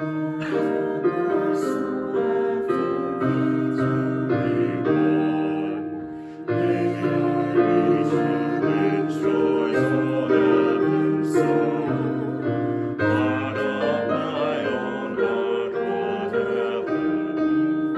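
Digital piano playing a hymn in full chords, starting up at once after a brief silence and with a short break between phrases about six seconds in.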